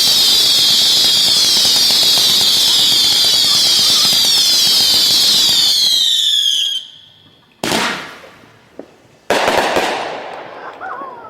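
Consumer fireworks: a dense volley of many whistles at once, each falling in pitch, over rapid crackling pops, cutting off suddenly about seven seconds in. Then two loud bangs, about a second and a half apart.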